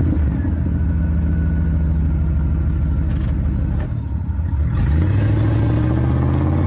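Car engine sound effect: a low, steady engine note that drops away briefly about four seconds in, then revs up with a rising pitch.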